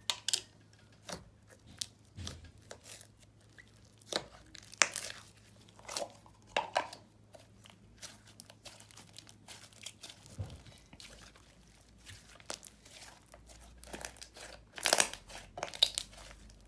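Hands squishing, stretching and pressing a soft butter/clay slime, giving irregular sticky crackles and sharp bubble pops, with a cluster of louder pops near the end.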